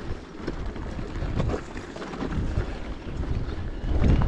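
Bicycle jolting along a bumpy dirt road: wind rumbling on the microphone, with scattered knocks and rattles from the bumps, louder near the end.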